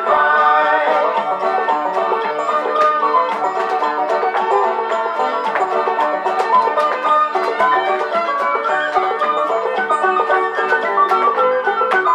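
Old-time banjo tune, with the sharp taps of clogging shoes striking a hard floor in time with it.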